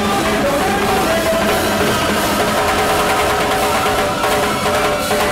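Live salsa orchestra playing: brass holding sustained notes over timbales, drum kit and hand percussion.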